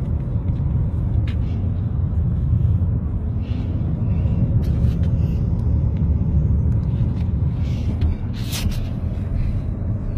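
Steady low rumble inside a moving car's cabin: engine and road noise, with a few faint clicks and a short hiss about eight and a half seconds in.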